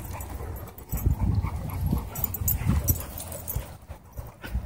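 Dogs making short vocal noises while crowding close to the microphone, several of them between about one and three seconds in, over a low rumble on the microphone.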